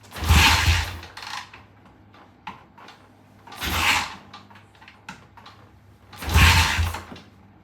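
Three kick-start attempts on a 1970 Triumph motorcycle, about three seconds apart. Each is a short burst of the engine being spun over without catching. The engine is on choke and proving hard to start.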